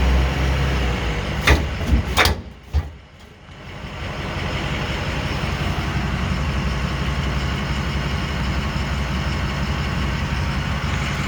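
A Demco Recon fifth-wheel hitch in a pickup bed gives several sharp pops, about four in quick succession a couple of seconds in, over the steady running of the 2006 Ford F-350's 6.0 diesel engine; the popping is a sign that something in the hitch seems broken.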